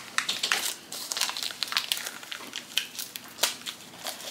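Plastic packaging crinkling and crackling in quick irregular bursts as hands pull and work at it, trying to get the wrapper off.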